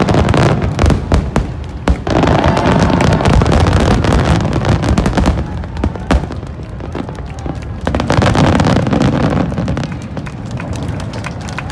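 Finale barrage of aerial firework shells bursting: rapid, overlapping booms and crackling with hardly a gap, easing a little in the last couple of seconds.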